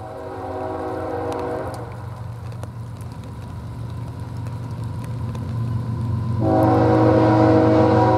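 Nathan Airchime K5HL five-chime horn on an approaching BNSF diesel locomotive: a blast of about two seconds, then a long blast starting a little over six seconds in, over the low rumble of the locomotive's diesel engine growing louder.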